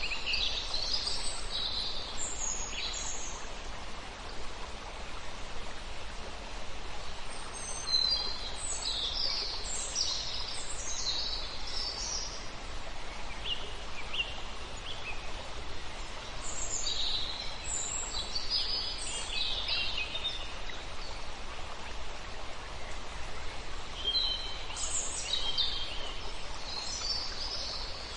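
A small stream running steadily, with songbirds singing in short bursts of high chirps every several seconds.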